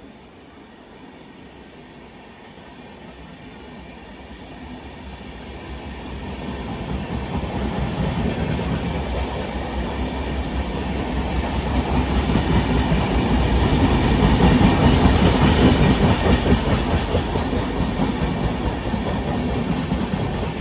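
A train approaching and running past on the tracks, its wheels clattering over the rail joints. Faint at first, it grows louder from about five seconds in, is loudest about three-quarters of the way through, then eases slightly.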